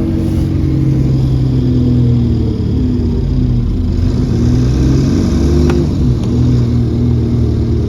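Alexander Dennis Enviro400 Trident double-decker bus's diesel engine pulling under load, its pitch drifting slowly up and down. A faint high turbo whine rises over it about four seconds in and fades a couple of seconds later, with a single click near the middle.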